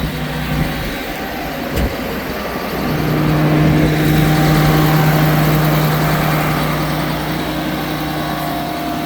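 Farm tractor's engine running steadily with a low hum that grows louder about three seconds in, and a single knock about two seconds in.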